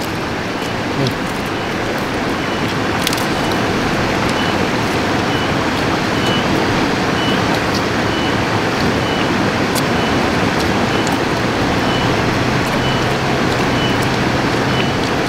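River water rushing over rocks in a steady noise, with a short high chirp repeating about every three-quarters of a second.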